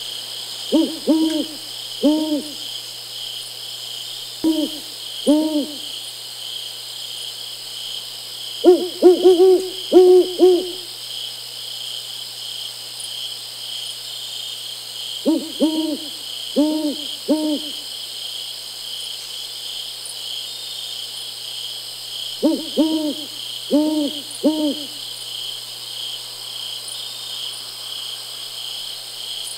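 An owl hooting in short series of a few low hoots, one series about every six or seven seconds, over a steady, evenly pulsing chorus of crickets.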